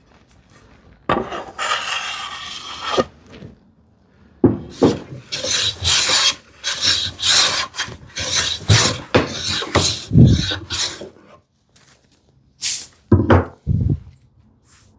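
A hand tool rubbing along the edges of a wooden workpiece, breaking the sharp corners. There is one longer stroke, then a quick run of short back-and-forth strokes, and a few more strokes near the end.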